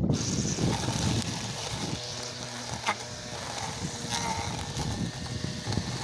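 Battery-powered string trimmer running, a steady motor whine with the hiss of the cutting line, with a few brief ticks.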